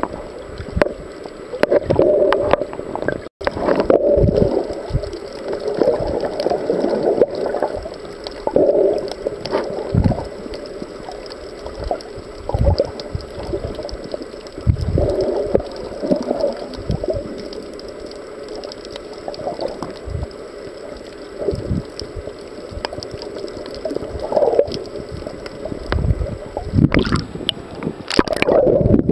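Water gurgling and sloshing around a camera held just under the sea surface, coming in uneven surges. Near the end there is a louder splashy burst as the camera breaks the surface.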